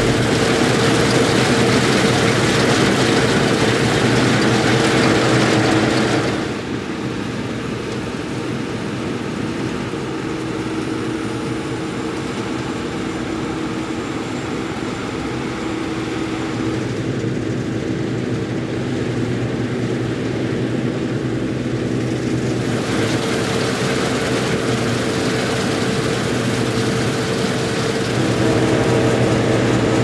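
Claas Lexion 560 Terra-Trac combine harvester running under load while threshing barley: a steady machine hum with a steady whine. The sound goes duller and a little quieter from about six seconds in until about twenty-two seconds in, then turns bright and loud again.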